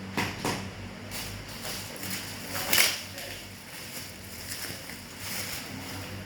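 Handling noises: a few short rustles and knocks, the loudest about three seconds in, over a steady low electrical hum.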